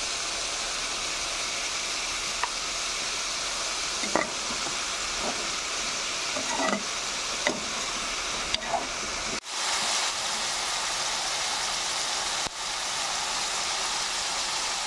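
Sliced bitter gourd sizzling steadily in hot oil in a pan, with a few short scrapes of a spoon against the pan as the slices are stirred.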